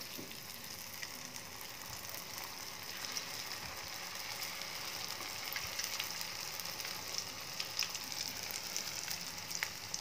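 Spring-roll-wrapped banana-chocolate rolls sizzling in oil in a frying pan, a steady hiss with scattered crackles that grow more frequent toward the end; the oil is at low heat for slow frying.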